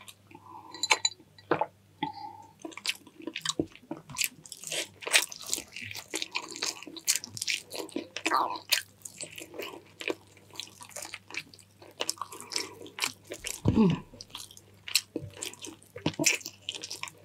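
A person chewing a mouthful of chicken stewed in coconut milk, close to the microphone, with many short wet smacks and clicks of the mouth throughout.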